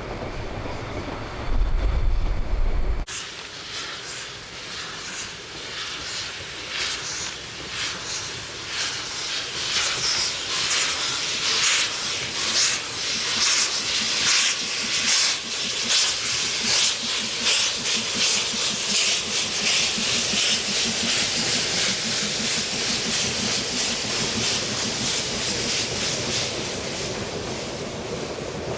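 Harz narrow-gauge steam locomotive working hard as it approaches and passes: sharp, regular exhaust chuffs over a hiss of steam, loudest in the middle. Then a steadier hiss as the coaches roll by. The first few seconds hold a different shot, a train rumbling through the yard, which stops abruptly at a cut.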